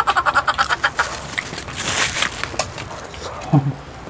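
A person's cackling laugh in a quick run of short high pulses, fading out about a second in, then a brief crackling noise around two seconds in.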